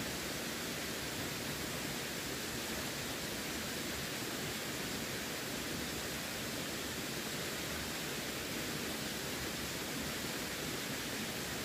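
Running water: a steady, even rushing hiss that does not change.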